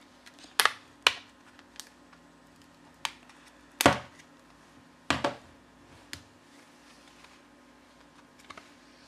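Irregular light clicks and taps of a Samsung Galaxy A22's back cover and frame being handled and pulled apart: about eight short sharp clicks, the loudest about four seconds in with a dull knock under it.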